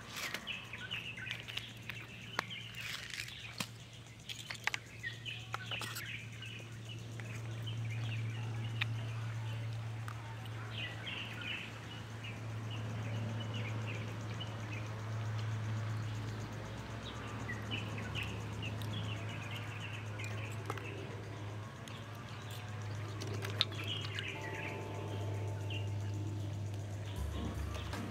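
Small birds chirping in short bursts of trills, over a steady low hum; a few light clicks in the first few seconds.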